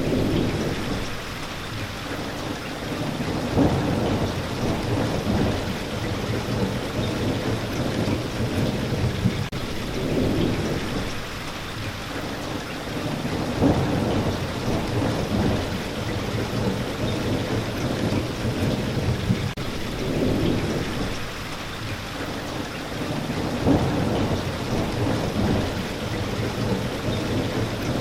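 Steady rain recording for sleep, with low rolling rumbles of thunder that swell and fade every few seconds under the patter.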